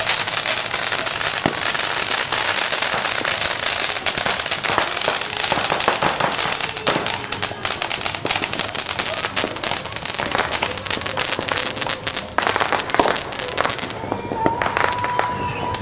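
Backyard fireworks and firecrackers going off in a dense, continuous crackle of rapid bangs over the hiss of spark-spraying fountains. About two seconds before the end the hiss drops away and only scattered cracks remain.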